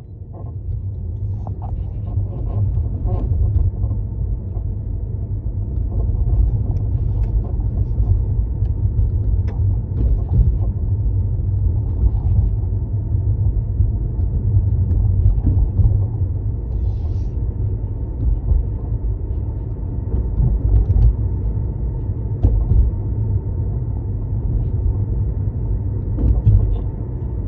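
Tesla's cabin creaking: short, irregular creaks and ticks over a steady low road rumble.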